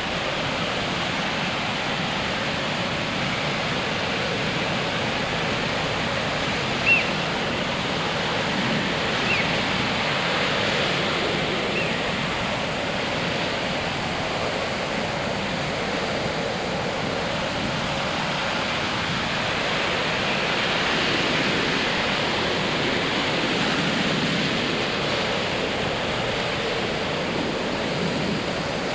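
Ocean surf breaking and washing up a sandy beach: a steady rush that swells a little a couple of times. A few brief high chirps cut through it, the loudest about seven seconds in.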